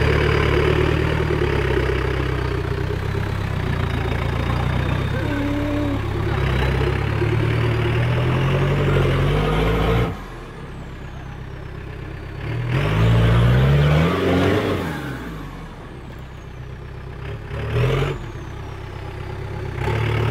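Modified off-road pickup truck's engine working under load in deep mud, running loud and steady, then revving up in a long rising burst midway and a short one near the end as the truck claws through the pit.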